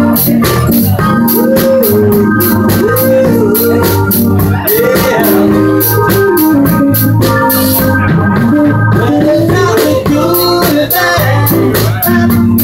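Live band music with an organ-toned electric keyboard playing chords and melody over a bass line and a steady ticking percussion rhythm.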